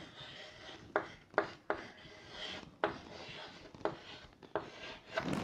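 Chalk writing on a chalkboard: scratchy strokes of the chalk on the board, broken by about six sharp taps as the chalk strikes the surface.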